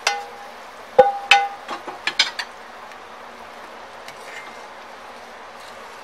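A metal spoon stirring thick milky sheer khurma in a metal pot. It clinks against the pot several times in quick succession about a second in, the first strike ringing briefly, and the stirring then goes on much more quietly.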